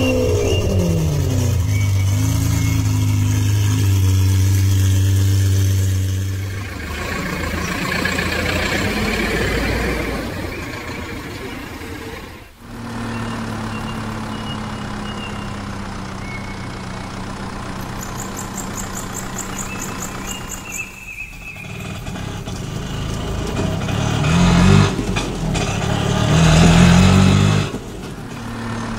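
Motor vehicle engine sounds in a string of segments that change abruptly: a falling pitch at the start, then steady running, with two rising revs near the end.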